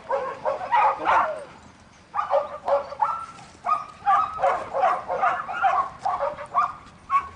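A dog barking and yipping in quick runs of short, high calls, with a brief lull about two seconds in.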